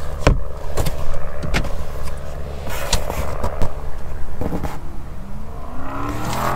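Steady low hum of a car running, heard from inside the cabin, with several short taps and rustles as a cardboard pizza box and its paper receipt are handled.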